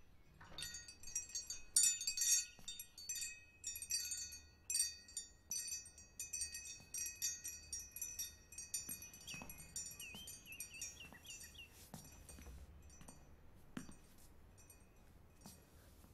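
Metal-tube wind chime set swinging, its tubes striking each other in a quick jangle of high ringing notes that thin out and die away after about nine seconds.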